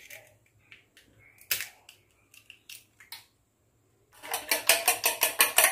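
Eggs cracked on the rim of a stainless steel bowl, with one sharp knock about one and a half seconds in and light shell clicks. From about four seconds in, a fork beats the eggs against the steel bowl in a fast, even run of about six clinking strokes a second.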